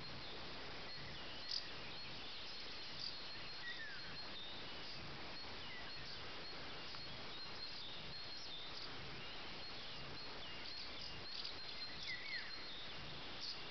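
Outdoor rural ambience: a steady faint hiss with scattered short bird chirps and calls, including a couple of quick downward-sweeping calls.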